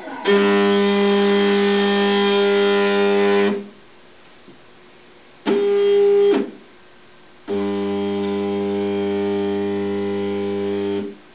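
ShopBot Desktop CNC router's Z-axis stepper motor whining steadily as the machine runs its Z-zero calibration, lowering the bit to touch off on the zeroing plate. The whine comes in three moves: one of about three seconds, a short one of about a second, then another of about three and a half seconds.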